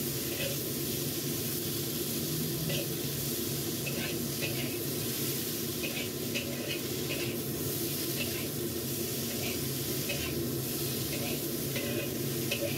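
Sliced bitter melon sizzling in hot oil in a wok while being stir-fried until wilted, with a metal spatula scraping and clinking against the wok every second or so. A steady low hum runs underneath.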